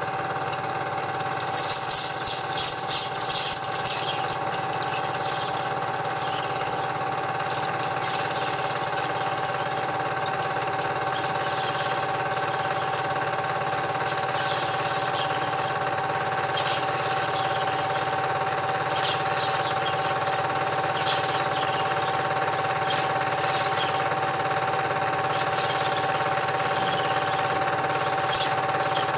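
A cine film projector running: a steady mechanical whirr of unchanging pitch, with scattered crackles and clicks.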